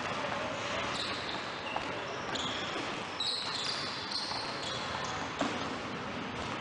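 A basketball being dribbled on a hardwood gym floor, with a few sharper thuds, while sneakers squeak in short high chirps. Heard in a large gym.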